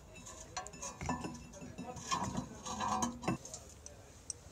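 Metal clinks and knocks of brake parts and tools being handled at a car's rear brake caliper carrier and disc, a run of sharp clicks and short rings between about half a second and three and a half seconds in.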